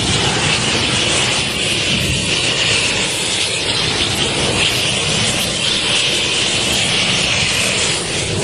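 Flamethrower torch running steadily at full flame: a loud, even rushing hiss of burning gas with a low rumble under it.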